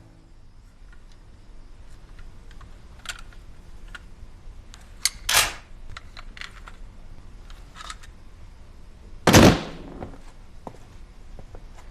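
Two loud, short, sharp impacts, about four seconds apart, with faint clicks and knocks between them.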